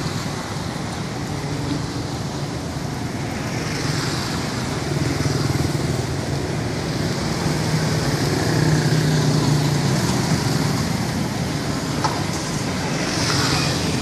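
Street traffic dominated by small motorbikes passing close by, their engines swelling and fading as several go past one after another over a steady road hum. A brief click sounds near the end.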